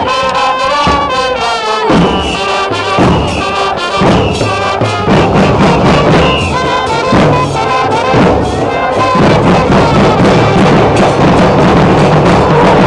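Football fans' stand band playing: trumpets and other brass horns over a steady, fast beat of large bass drums (bombos) struck with wooden sticks, loud throughout.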